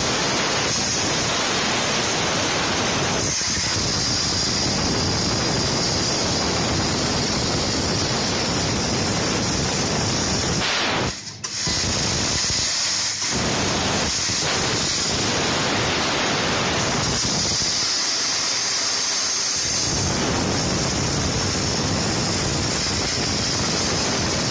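Laser cutting machine's cutting head cutting 3 mm brass sheet: a loud, steady hiss of assist gas jetting from the nozzle. It drops out briefly about eleven seconds in, between cuts.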